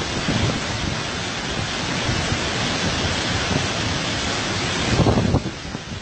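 White water rushing over the rocky lip of a mountain waterfall, a loud steady roar, with wind buffeting the microphone and a stronger gust about five seconds in.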